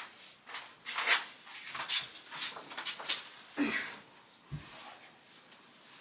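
Irregular short clicks and rustles, about two a second, of hands working with electrical wiring and wire nuts, then a single soft thump about four and a half seconds in.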